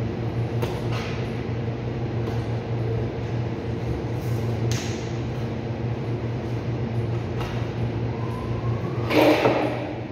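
Steady hum of a cold room's ceiling refrigeration unit. Over it come a few sharp knife clicks and a louder scrape about nine seconds in, as a beef forequarter is boned out on a cutting board.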